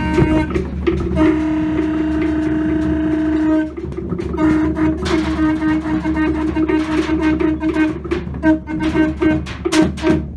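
Conch shell trumpets blown in long, held notes, one blast after another, the first held for a couple of seconds. A few sharp knocks come in near the end.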